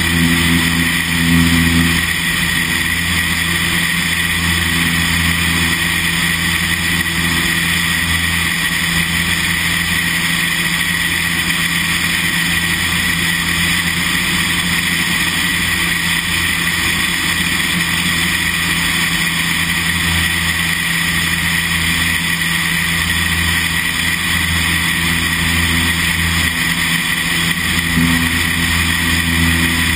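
Single-engine light aircraft's piston engine and two-bladed propeller droning steadily in flight, with a constant rush of airflow over it. The drone holds an even pitch and level throughout.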